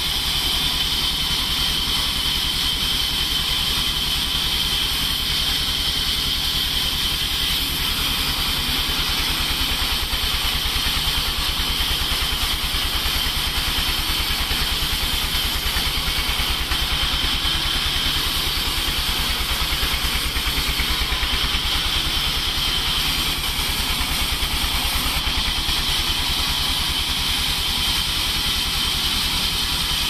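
Large vertical band sawmill running steadily while its blade slices a log lengthwise into slabs: a steady high whine over a low drone.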